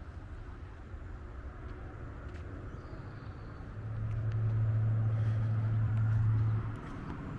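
Low rumble of passing road traffic. A steady low hum swells about four seconds in and drops away about three seconds later, like a vehicle going by.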